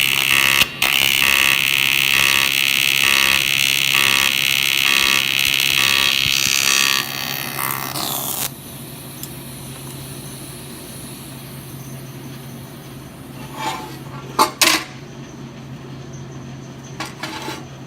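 Shop power tool running loud with a pulsing beat, then winding down with a falling pitch, after which a low hum remains and a few knocks sound near the end.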